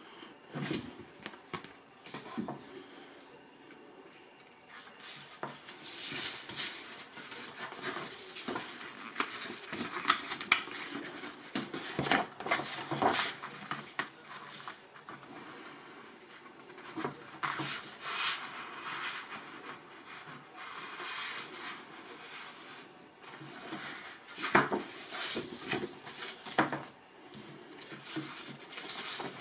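Paper and card of a gatefold vinyl record jacket being handled: irregular rustling and sliding as a large paper poster is unfolded and smoothed and an inner sleeve is drawn out, broken by short sharp crinkles and taps.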